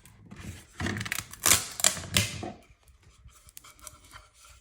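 Clicks, knocks and scraping as a freshly 3D-printed plastic part is pulled off the Bambu P1S printer's build plate. The noise is densest in the first half and gives way to a few lighter clicks.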